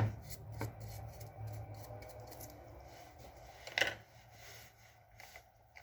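Small metallic clicks and handling knocks at a hobby metal lathe, over a faint low hum that fades out in the first few seconds; the sharpest click comes near four seconds in.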